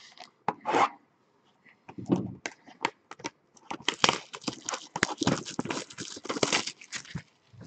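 Hands tearing the wrapping off a sealed cardboard box of trading cards and opening it: a few scattered clicks, then a busy run of quick crackles and rustles from about two seconds in.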